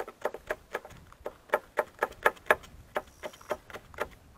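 Kitchen knife chopping fresh herbs (green onion and dill) on a plastic cutting board: a steady run of quick knocks, about four a second.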